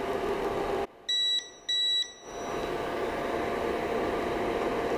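Two short electronic beeps from the resin 3D printer's buzzer, about half a second apart, with a steady mechanical hum before and after them.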